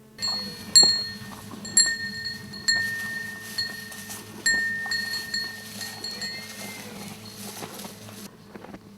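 A cow's neck bell clinking about once a second as the cattle are fed, ringing the same high metallic note each time and fading between strikes.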